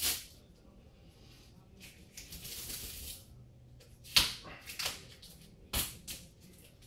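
Painter's masking tape being peeled off a wall: a drawn-out tearing hiss and several sharp crackles as the tape comes away and is handled.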